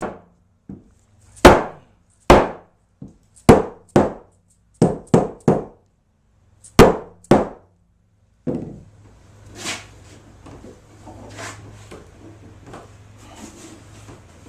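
Mallet striking the maple boards of a table-top glue-up: about a dozen sharp wooden knocks, irregularly spaced, over the first eight seconds. After that comes a steady low hum with a few faint, softer knocks.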